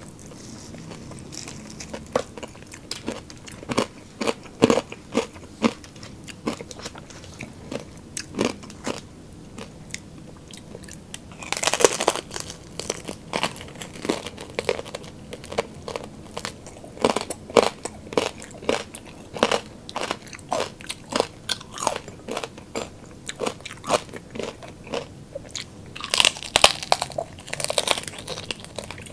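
Close-up eating sounds: crunchy bites and chewing of crispy fried pork belly (lechon kawali) and fried chicken wings, with steady small crackles and mouth clicks. Loud runs of crunching come about twelve seconds in and again near the end.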